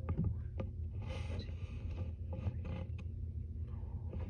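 Scattered clicks, creaks and rustling over a steady low hum, with a short burst of rustling about a second in.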